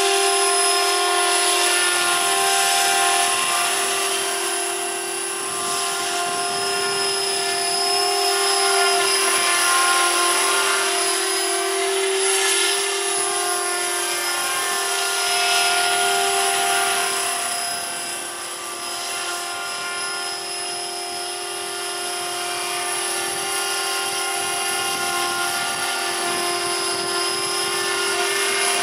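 Electric RC helicopter in flight: a T-Rex 500 with a four-blade rotor head and a brushless motor. A steady motor and gear whine sits over the rotor blade noise, swelling and fading in loudness as the model flies past.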